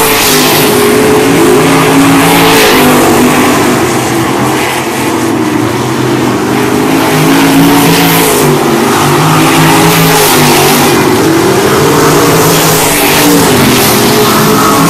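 Winged sprint car engine on a dirt oval, loud, its pitch rising and falling again and again as the car accelerates down the straights and lifts for the turns.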